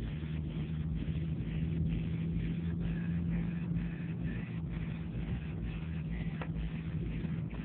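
Infiniti G37's naturally aspirated 3.7-litre V6 engine and exhaust heard from inside the cabin, cruising at about 2,000 rpm with a steady low drone. The drone drops away near the end.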